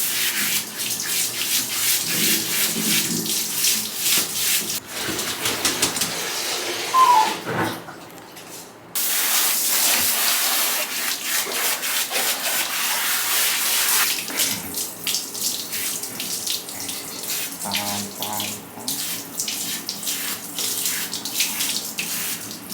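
Water running and splashing in a bathtub while a shiba inu is rinsed, a steady hiss that stops for about a second a third of the way in, then starts again.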